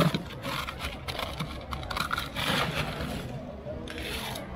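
Ice being scooped out of a styrofoam cooler and rattling into a stainless-steel cup: repeated scrapes and clinks over a steady low rumble.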